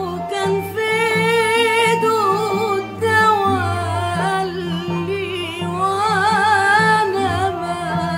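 A woman singing a classical Arabic song in long, ornamented phrases with wide vibrato, over an Arabic orchestra holding sustained low notes beneath her.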